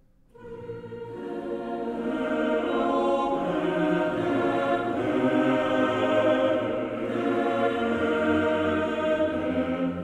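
Background music with sustained choir-like voices, coming in just after a brief near-silent gap at the start and swelling.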